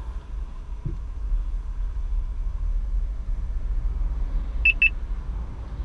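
Mobileye 630 warning unit giving two quick, high beeps about three-quarters of the way in: its forward collision warning, set off by getting too close to the car ahead. Under it is a steady low rumble inside the Nissan Leaf's cabin.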